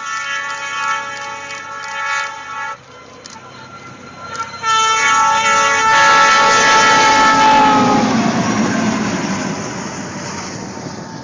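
Locomotive air horn sounding a steady chord that cuts off abruptly, then a second horn blast from a passing train whose pitch drops as it goes by, with a rush of train noise that swells and fades.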